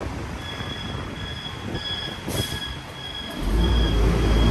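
Train running near the railway: a high tone that comes and goes about twice a second, then a heavy low rumble that sets in and grows louder about three and a half seconds in.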